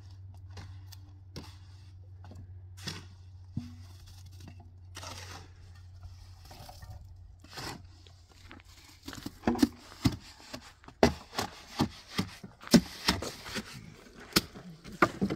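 Plastic sheeting crinkling and crackling as someone climbs a wooden ladder and steps onto a plastic-covered roof: a quick, irregular run of sharp cracks and knocks that starts about halfway through. A low steady hum sits underneath in the first half.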